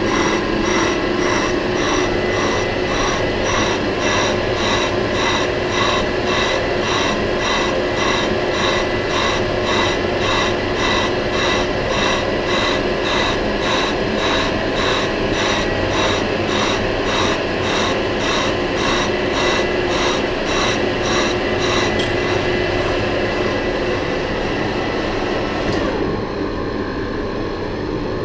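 Metal lathe running with a cutting tool skimming the face of a slightly warped compressor end cover, giving a steady tone with an even rhythmic pulse. The sharp cutting sound drops away about 26 seconds in, leaving the lathe running.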